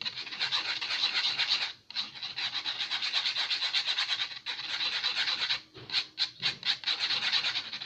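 Slime glue being stirred in a small container, a utensil scraping rapidly against the container. The scraping stops briefly twice, and near the end it breaks into separate quick strokes.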